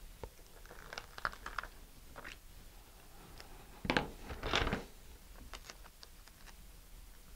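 Paper rustling and crinkling as an adhesive decal sheet is handled and a decal is peeled from its backing, with small ticks and two louder rustles about four seconds in.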